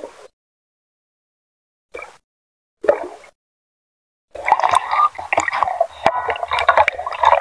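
Silent for the first four seconds apart from two brief water blips, then water splashing and bubbling close to the microphone with many small clicks, as a diver is at the sea surface.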